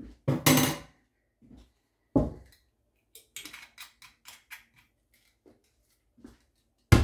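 Kitchen handling noises: a clatter and then a deeper knock in the first couple of seconds, then a run of small clicks as a screw cap is twisted onto a glass oil bottle, and another loud knock near the end.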